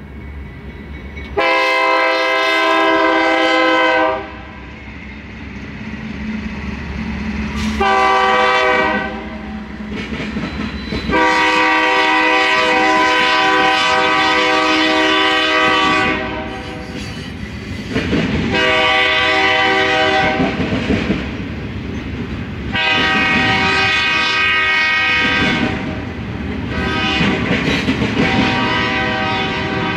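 Diesel freight locomotive air horn sounding six blasts as the train passes: a long one of about three seconds, a short one, a long one of about five seconds, then three more of two to three seconds each. Between the blasts, the train's rumble and the clickety-clack of double-stack container cars rolling over the rail joints.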